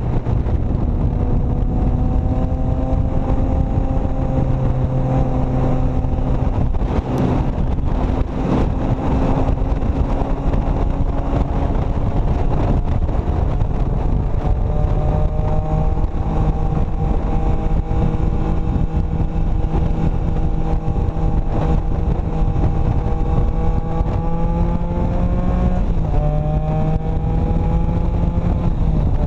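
Motorcycle engine running steadily at road speed under a rush of wind noise. The engine note holds mostly level and dips once near the end, as at a gear change or easing off the throttle.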